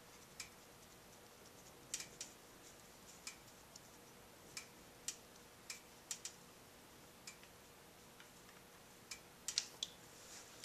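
Faint, sharp metal clicks at uneven intervals as the oil drain plug of a 1987 Kawasaki KLR650 is unscrewed by hand, with a few louder clicks close together near the end as the plug comes free and the oil starts to drain.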